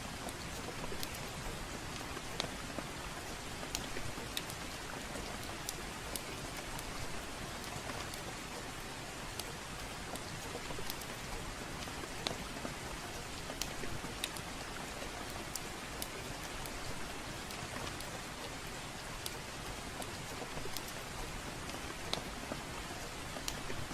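Steady rainfall with scattered sharp crackles and pops from a fireplace fire.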